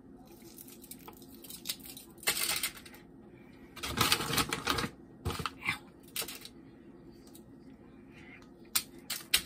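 Crinkling aluminium foil and rustling plastic as frozen shrimp are taken from a bag and set down one by one on a foil-lined baking tray: scattered clicks and several short rustles.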